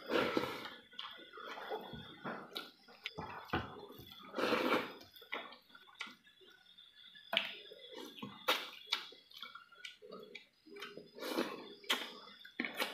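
Close-miked eating by hand: wet chewing, lip smacking and squelching of mouthfuls of rice and chicken curry, in irregular clicks and short wet crackles.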